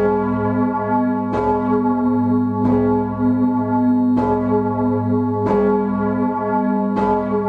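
Swinging bronze church bell, Glocke I 'St. Petrus' (1.95 m, 4,100 kg, strike note G sharp), heard close up in its bell chamber. The clapper strikes about every one and a half seconds, five strokes here, and each stroke rings on into the next over a deep, continuous hum.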